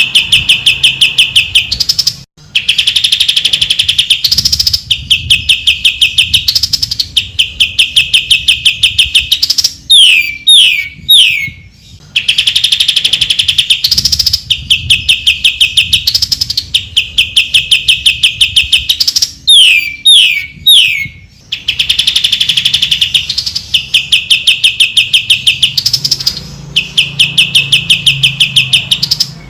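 Cucak ijo (greater green leafbird) singing loudly in repeated rapid trilled phrases about two seconds long, separated by brief gaps. Twice, about a third of the way in and again near two-thirds, the trills give way to a quick run of three or four falling whistles.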